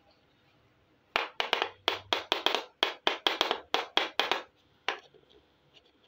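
Hard plastic toy cookware clacking: a quick run of about fifteen sharp taps, some four or five a second, then one more a moment later.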